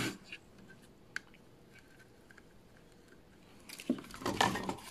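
Faint scattered clicks and crackling from soldering work: a soldering iron melting solder wire onto an IC's pins and dragging it along them. The clicking grows denser about a second before the end.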